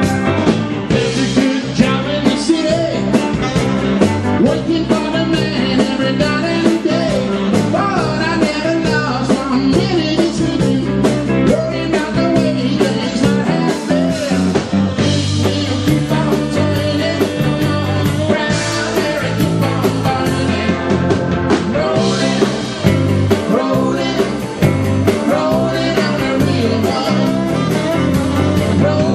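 Live rock band playing: electric guitar, electric bass and drum kit, with a man singing lead.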